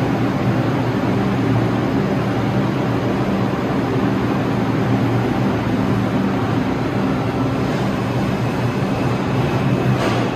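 New York subway train running through the station: a steady loud rumble with a low hum. A sharper, higher rush of wheel-and-rail noise rises near the end.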